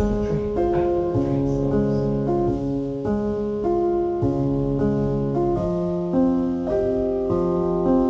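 Background music on piano: a melody of notes changing about every half second over held lower notes.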